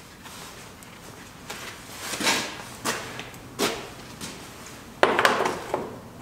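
Paper towel rustling and crinkling as it is folded in the hands, in several short bursts. The loudest and longest comes about five seconds in.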